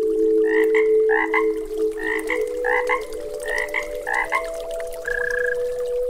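A frog croaking in a run of about six short, evenly spaced croaks, then a brief buzzy trill near the end, over steady low droning tones.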